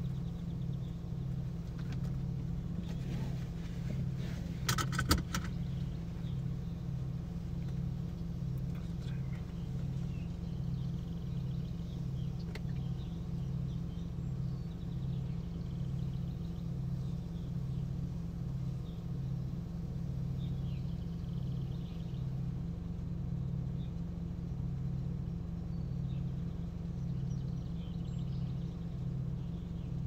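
An idling car engine gives a steady low hum that pulses regularly. About five seconds in, a brief cluster of sharp clicks stands out above it.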